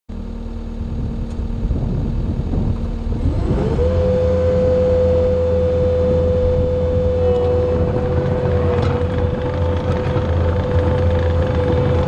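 90 hp skid steer's diesel engine running, throttled up about three seconds in with a short rising whine, then held steady at high revs over a deep rumble.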